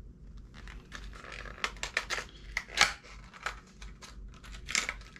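Plastic and cardboard lure packaging being handled: irregular crinkles and sharp clicks as a boxed crankbait is turned over and worked open.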